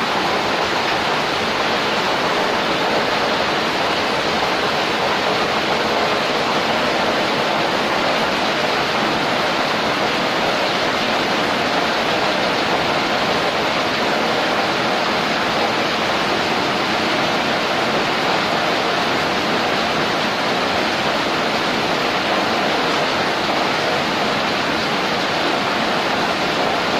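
Steady rushing of a large dandang steamer pot boiling hard over a wood fire, steam venting from it as rice cooks.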